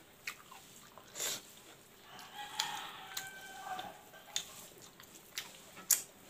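A rooster crows once, starting about two seconds in and lasting about two seconds, over the short sharp clicks and smacks of someone eating with their hand; the loudest click comes near the end.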